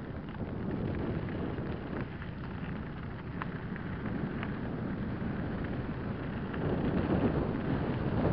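Wind rushing over the microphone and mountain-bike tyres rolling down a loose gravel track, with scattered small ticks of stones and rattles. It gets louder about two-thirds of the way through.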